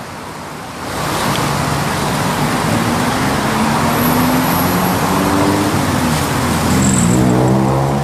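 Motor vehicle running with steady road noise; the engine note rises near the end as it picks up speed.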